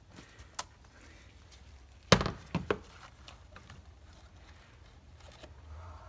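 A few sharp clicks and knocks of a cup-type oil filter wrench and ratchet on a BMW N55's oil filter housing cap as the cap is unscrewed and lifted out. One sharp knock a little over two seconds in is the loudest, followed by a few lighter clicks.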